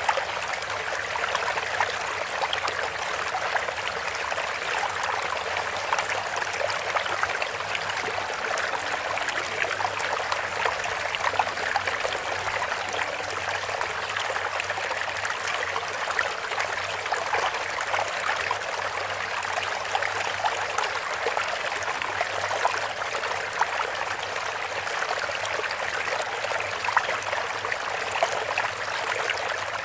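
Water running and trickling steadily, a continuous stream sound without pause.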